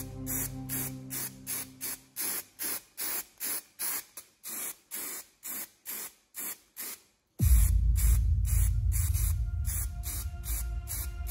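Aerosol spray paint hissing in short, rapid bursts, about three a second. Music with a heavy bass comes in abruptly about seven seconds in and becomes the loudest sound, with the spray bursts continuing under it.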